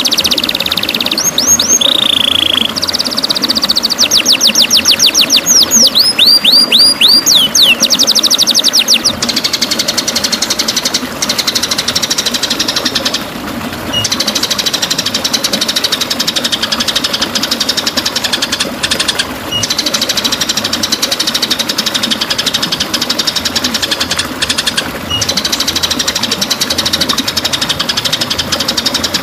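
White-rumped shama (murai batu) singing: quick runs of sharp whistled notes that sweep in pitch, then from about nine seconds a continuous fast buzzing trill, over a steady hiss.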